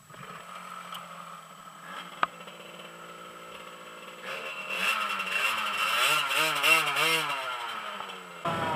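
Minimoto pocket bike's small two-stroke engine idling steadily, then revved in several quick throttle blips from about halfway in, with a sharp click about two seconds in.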